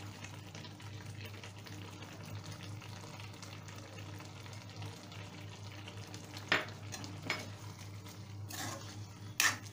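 Thick curry simmering with a faint sizzle in a metal kadai over a steady low hum. From about six and a half seconds in, a metal ladle scrapes and clinks against the pan a few times as the coriander is stirred in.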